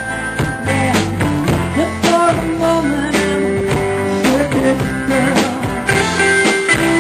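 Band music: electric guitar lines over drums, with sustained notes and frequent sharp drum and cymbal hits.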